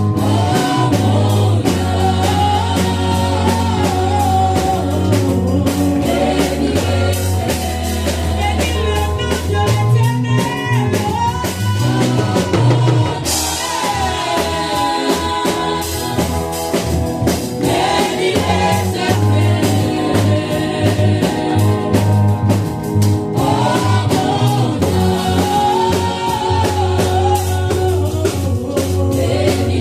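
Gospel worship song: voices singing over a steady bass line and drum kit.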